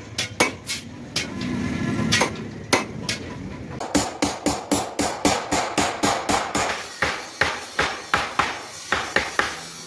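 A small hammer tapping a steel punch into thin aluminium sheet, chasing a decorative beaded pattern. Each tap is a sharp metallic strike. They come a few at a time at first, then settle into a quick, even run of about four to five a second.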